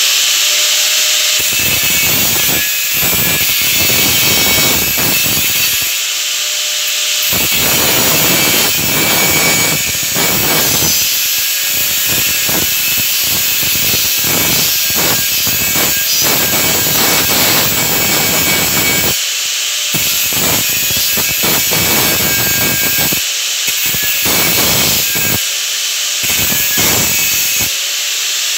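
Electric angle grinder running with a steady whine, its disc grinding the metal frame of a hand truck. The rough grinding noise drops away briefly several times as the disc comes off the metal, then returns when it is pressed back on.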